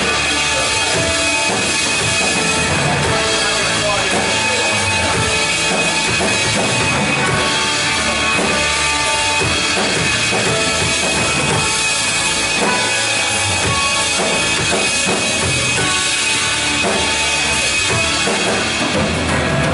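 Band music with a full drum kit and held instrument notes, loud and steady.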